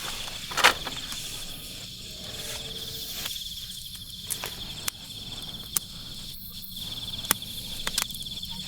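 Crickets trilling steadily in a high, rapidly pulsing tone, with a few scattered clicks and knocks, the loudest about a second in.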